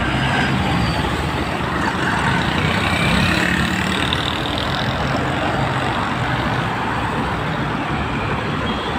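Street traffic noise, with the steady engine of a large vehicle, truck or bus, running close by.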